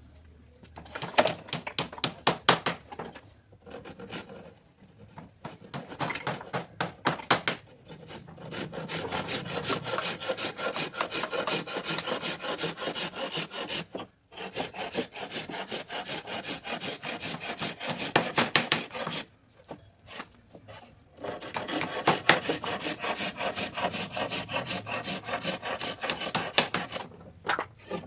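A hand tool worked back and forth on teak wood, making rapid, even scraping strokes in several long bouts with short pauses between them.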